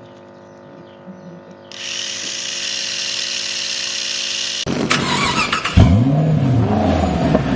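A steady rushing noise that cuts off suddenly, followed by an engine-like sound revving up and down in repeated sweeps, with a sharp knock in the middle.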